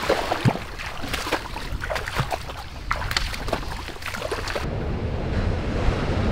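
Brush and twigs crackling and rustling with footsteps as people push through dense dune shrubs on foot. About four and a half seconds in it cuts to a steady rumble of heavy surf, with wind on the microphone.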